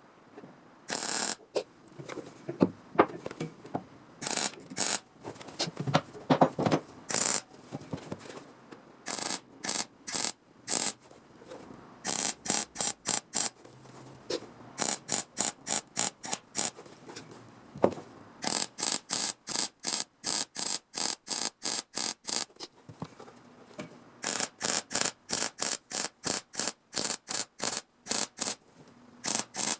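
Welding on thin car-body sheet steel in short stitch bursts: trains of quick crackling pulses, about two to three a second, with brief pauses between the runs.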